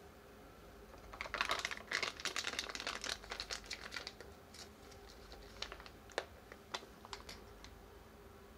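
Plastic sauce pouch crinkling as hands squeeze and handle it: a dense run of crackles for about three seconds, then scattered single crinkles.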